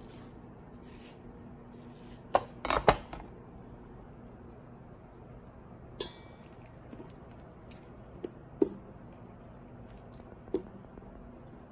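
Kitchen utensils knocking and clinking while fruit is cut: a quick cluster of three knocks about two and a half seconds in, then single knocks every couple of seconds, over a faint steady hum.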